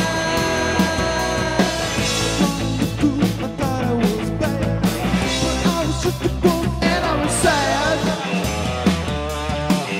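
Background rock music with singing, guitar and a steady beat.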